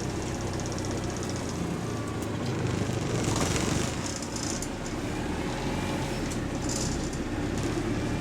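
Diesel engine of a London bus running steadily under way, heard from inside the passenger saloon as a low drone. Brief hissy, rattly bursts come in about three seconds in and again near seven seconds.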